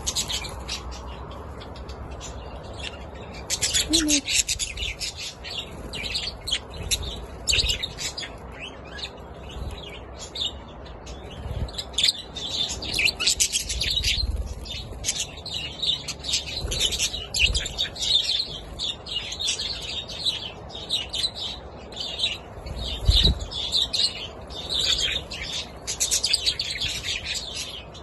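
Budgerigars chirping and chattering, many quick overlapping calls, with a few brief low thumps underneath.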